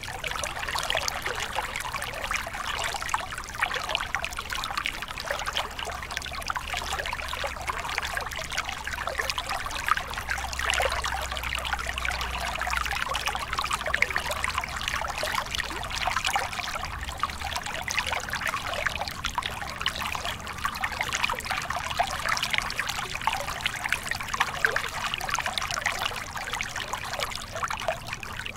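Small mountain stream pouring in a short cascade over rocks into a shallow pool: steady trickling and splashing water, with many small irregular splashes on top.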